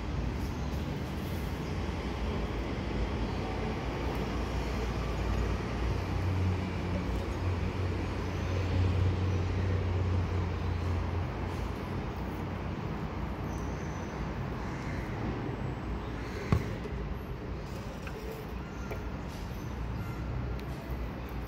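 Steady low rumble of road traffic, swelling for a few seconds near the middle. A single sharp click comes about sixteen seconds in.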